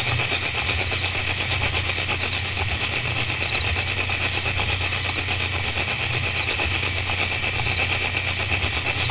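Night chorus of crickets, a fast, even pulsing trill, with a higher call coming back about every second and a half and a steady low hum underneath.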